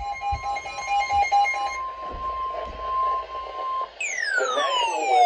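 Electronic alert tones. A fast run of beeps for the first two seconds sits over a steady high tone that holds until nearly four seconds in. Then a loud tone sweeps steadily down in pitch.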